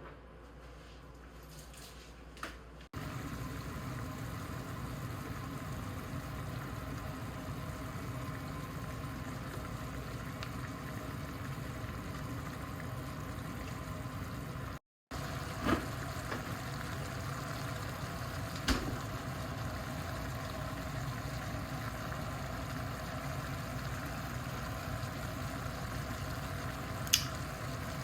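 A pot simmering on the stove: a steady, noisy hum with faint bubbling, a few light clicks at the start and a couple of sharp knocks later on.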